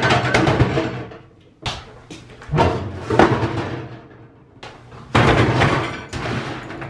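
Used microwave ovens being set down and shifted on a concrete floor, their casings clunking and scraping in several bouts of a second or so.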